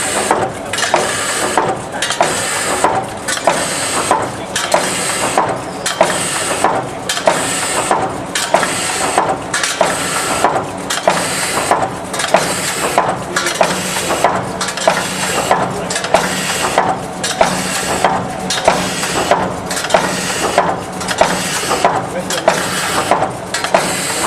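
OMAS P808 TS bucket-handle making machine running through its cycle: a sharp mechanical clack about once a second over a steady motor hum.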